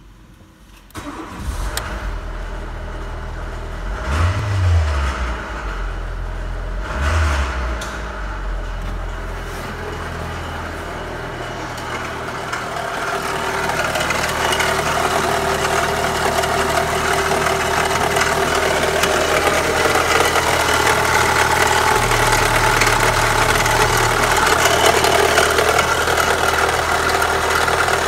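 Renault Scenic's 1.6-litre K4M 16-valve four-cylinder petrol engine starting about a second in, revved briefly twice a few seconds later, then idling steadily. It is heard first from the driver's seat and grows louder and clearer in the second half, close up under the open bonnet.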